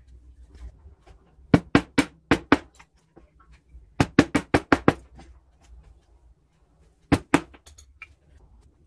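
A steel chisel being struck to cut through a thin strip of wood, in three quick runs of sharp knocks about five a second, the last run only two knocks.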